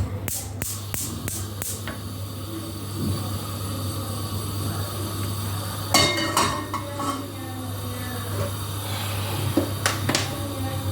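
Kitchen clatter of cookware and utensils: a quick run of about six sharp clicks in the first two seconds, then a loud metallic clatter with ringing about six seconds in and a couple of knocks near the end, over a steady low hum.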